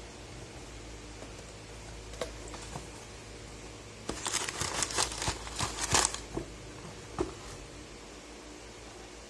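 Packaging being handled: a burst of crinkling and rustling lasting about two seconds, starting about four seconds in, with a few single clicks before and after, over a steady hiss.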